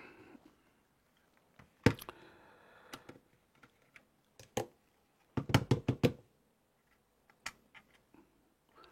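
Small screwdriver and screws clicking and tapping on the plastic case of an old sat-nav as its screws are taken out: scattered sharp clicks, with a quick run of them about five to six seconds in.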